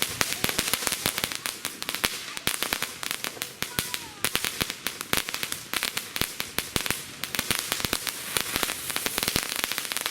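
Consumer fireworks crackling: a dense, unbroken stream of sharp snapping pops, many a second, over a steady hiss.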